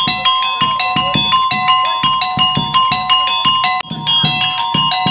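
Monkey-show street music played on struck metal bars and a hand drum: a fast, repeating pattern of ringing mallet notes, about five strokes a second, over steady low drum beats.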